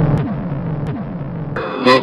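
Electronic music with a series of falling bass tones. Near the end a different sound cuts in sharply.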